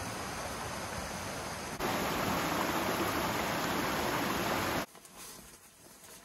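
Water rushing over a small rocky creek cascade, a steady hiss that gets louder about two seconds in and cuts off suddenly near the end.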